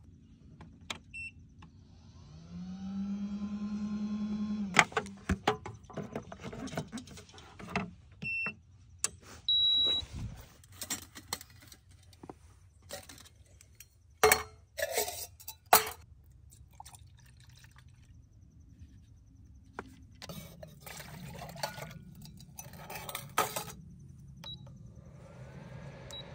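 Clicks, knocks and clatter of camp cooking gear being handled. A small motor whirs up and runs steadily for about two seconds near the start, and a few short electronic beeps sound.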